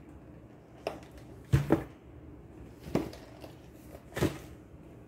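Groceries being handled and put away: several separate short knocks and clatters of packages and containers, the loudest about a second and a half in.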